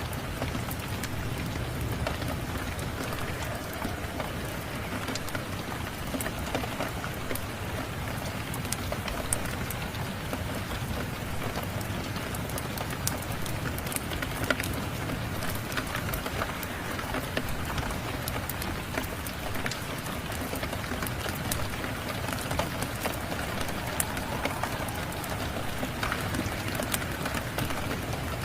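Steady rain, with the scattered sharp pops and crackles of a wood fire burning in a fireplace.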